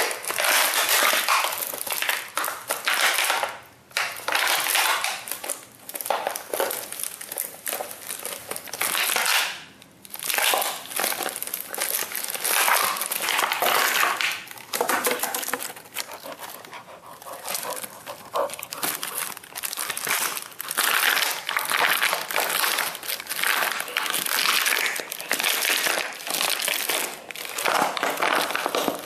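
Siberian husky chewing and biting a used plastic drink bottle: loud crinkling and crackling of the thin plastic in irregular bursts, with a couple of brief pauses.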